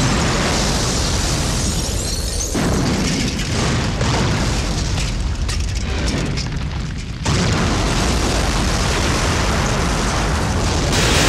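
Sound effects of explosions and blazing fire: a loud, continuous rumbling blast that changes abruptly about two and a half seconds in and again about seven seconds in.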